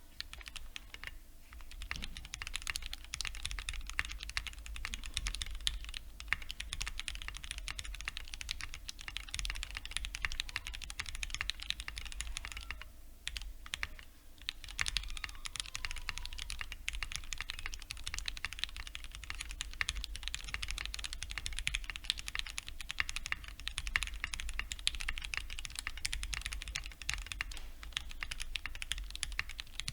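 Rama Works Thermal custom mechanical keyboard being typed on continuously, fitted with lubricated Gateron Ink linear switches, Enjoy PBT keycaps and clipped, greased GMK stabilizers with the band-aid mod. The typing pauses briefly about 13 seconds in, then carries on.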